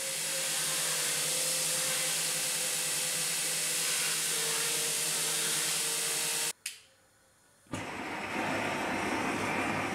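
Belt sander grinding the edge of a steel knife blade, a steady high hiss that cuts off about two-thirds of the way in. After a second of near quiet, a gas burner's flame starts up with a steady, lower noise.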